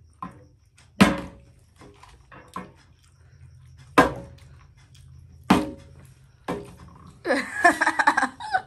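A partly filled plastic cola bottle being flipped and landing on a glass-topped table: three sharp knocks about a second in, at four seconds and at five and a half seconds, with fainter taps between. Voices laughing near the end.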